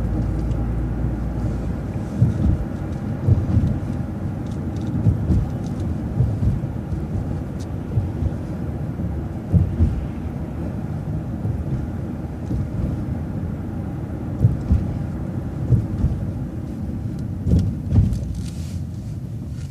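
A bus driving along a city street: a steady low rumble of engine and road, broken by several sharp low thumps over bumps.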